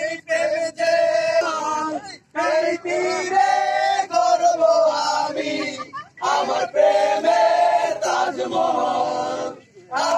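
A group of men singing together in unison, loudly and in long held phrases, with short breaks about two seconds in, about six seconds in, and near the end.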